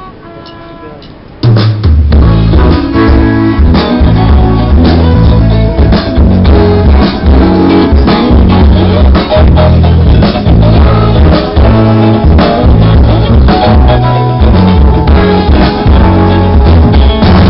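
Live rock band at an outdoor stage soundcheck. After a few quiet held notes, the full band comes in loudly about a second and a half in, with drum kit, bass and electric guitar playing through the PA.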